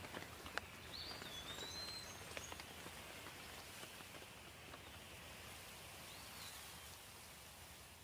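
Light rain falling, a soft steady patter with scattered single drips. A bird gives a short call about a second in and again near the end.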